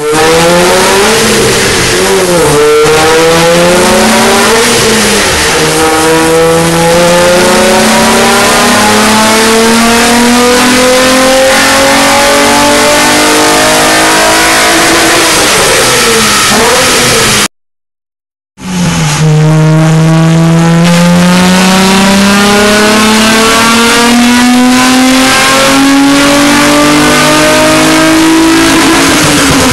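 2003 Nissan 350Z's 3.5-litre V6, breathing through Nismo headers, resonated cat deletes and a Nismo S-Tune exhaust, running loud at wide-open throttle in fifth gear on a chassis dyno: after a few quick blips the revs climb slowly and steadily for about fifteen seconds, then fall away as the throttle lifts. After a second of silence at a cut, a second pull climbs the same way and drops off at the very end.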